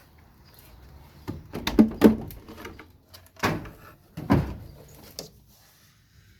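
Wooden hive parts knocking and scraping as they are handled: a cluster of sharp knocks about a second in, then single knocks at intervals.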